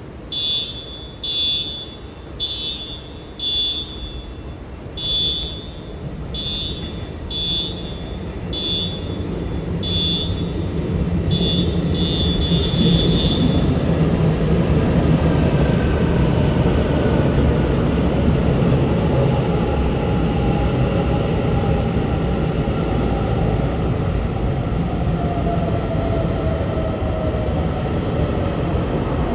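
A TRA EMU900 electric multiple unit pulls into the platform and slows: the rumble of wheels on rail grows loud, and the traction motors' whine falls in pitch as the train brakes. For the first dozen seconds a high electronic beep repeats about once a second, then stops.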